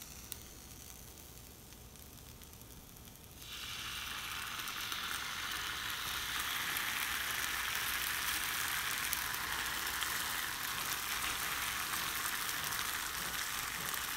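Tomato-ketchup sauce poured onto a very hot metal sizzler plate, sizzling as it hits the metal. The sizzle starts suddenly about three and a half seconds in and keeps on steadily.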